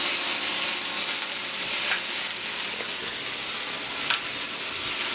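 Chicken breasts sizzling steadily as they fry in a pan, with a couple of light clicks from the tongs.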